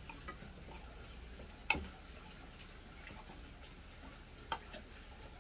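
Metal spoon clinking lightly against a stainless steel bowl as rice is stirred and mixed, a few scattered clinks with the two sharpest just under two seconds in and near the end.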